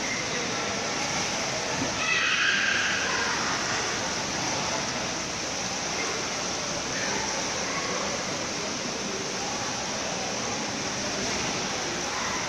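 Indoor swimming pool ambience: a steady wash of water noise with splashing from a swimmer's strokes, a little louder about two seconds in, and voices in the background.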